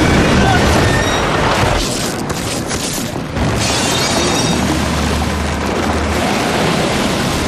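Film sound of a storm at sea: heavy waves pounding a yacht, then a sudden crash about three and a half seconds in as seawater bursts into the cabin and keeps rushing and sloshing.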